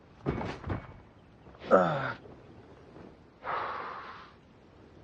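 A man's wordless effort sounds: a short breath near the start, a groan that falls in pitch about two seconds in, then a long breathy sigh near the end.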